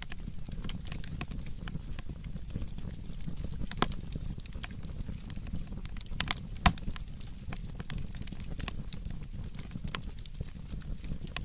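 Burning firewood crackling, with irregular sharp pops and a couple of louder cracks, about 4 and 6.5 seconds in, over a steady low rumble.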